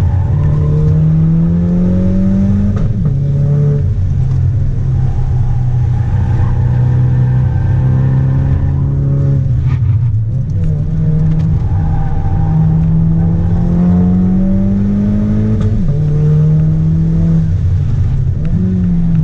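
Turbocharged four-cylinder car engine heard from inside the cabin under hard acceleration. The revs climb and fall sharply at each upshift, about three seconds in, again near the end and once more just after, with a brief lift-off around the middle.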